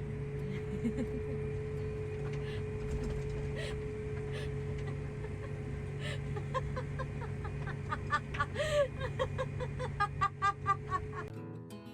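A vehicle engine runs steadily at low speed. About halfway through, a run of quick clucking from chickens starts up over it. Near the end it cuts off suddenly and music begins.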